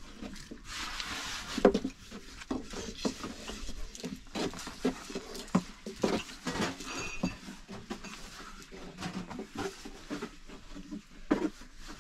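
Irregular soft pats, taps and knocks of flatbread dough being shaped and flattened by hand on a wooden board.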